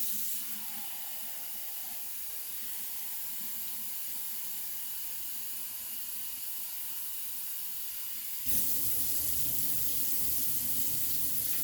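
Water running from a kitchen tap into a measuring cup in a steady hiss. About eight and a half seconds in, the flow suddenly turns louder and fuller.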